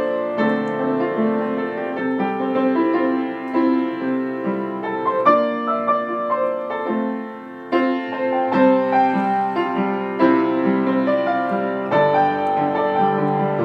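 Piano-like keyboard instrument playing a melody over chords, with no drums or singing.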